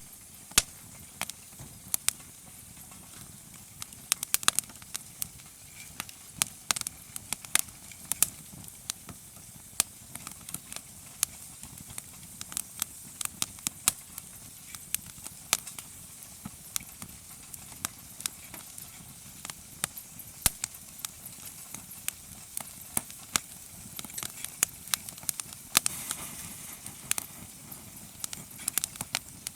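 Campfire crackling: wood burning with frequent, irregular sharp pops and snaps over a steady low rush of flame.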